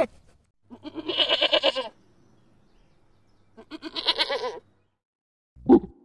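A goat bleating twice, each bleat about a second long with a quavering pitch. Near the end come two short, louder calls.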